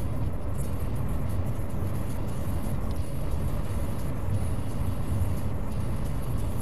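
Steady low rumble of a vehicle driving at about 40 mph, heard from inside the cab: engine and tyre noise on cracked old asphalt, even throughout.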